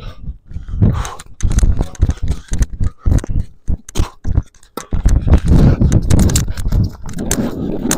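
Tennis rally: several sharp hits of the ball off racket strings and bounces on the court, over a heavy, uneven low rumble.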